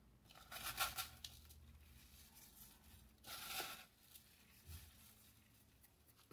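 Salt pinched from a plastic bowl and sprinkled over raw vegetables: two faint, short gritty rustles, about a second in and again at about three and a half seconds.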